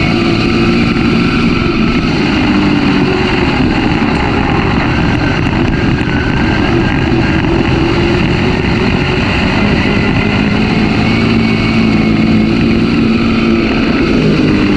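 Dirt-track race car's engine running hard on track, heard loud from the in-car camera inside the cockpit, its pitch rising and falling.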